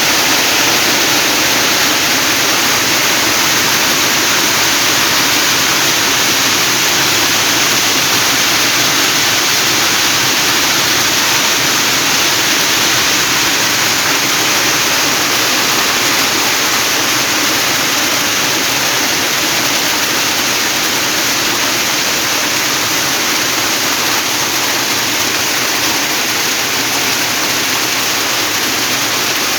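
Heavy rain pouring down, a loud, steady hiss that doesn't let up.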